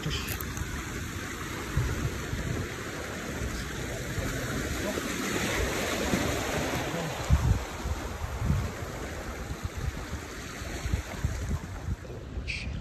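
Small waves washing and foaming against shoreline rocks, swelling about halfway through, with wind buffeting the microphone.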